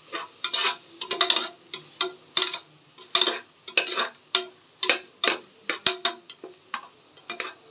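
Metal spatula stirring and scraping chopped onions and ginger-garlic paste frying in oil in an aluminium pressure cooker, in short irregular strokes about two or three a second.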